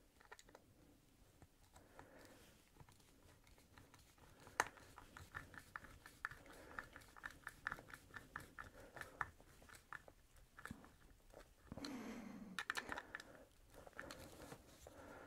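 Crosshead screw being turned by hand with a screwdriver into a pine plate: a quiet run of small clicks and creaks at about three to four a second as the screw bites into the wood, with a short louder creak about twelve seconds in.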